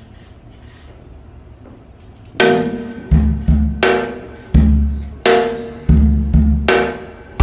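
Background music: after a quiet first two seconds, a beat starts with deep bass and struck, ringing notes repeating about every three-quarters of a second.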